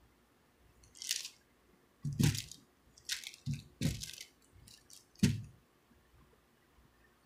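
Close handling noises: a run of about five short crinkling, crunching rustles, several with a soft thump, between about one and five and a half seconds in.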